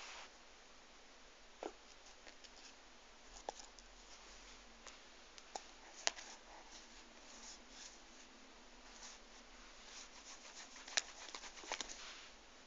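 Faint rustling of paper sheets with scattered light taps and clicks as a cat shifts and steps about on them, busiest and loudest near the end.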